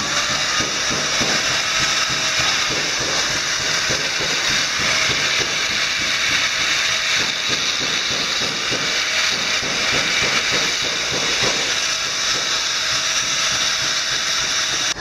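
Handheld electric angle grinder grinding the steel blade of a parang machete: a steady, hissing grind of the disc on the blade over the motor's whine, which rises as the motor spins up at the very start.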